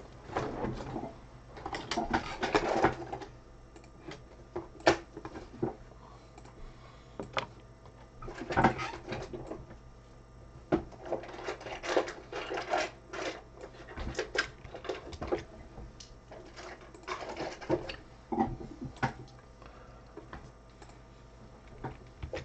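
Computer keyboard and mouse in use: scattered sharp clicks and short clattery runs of keystrokes, over a low steady hum.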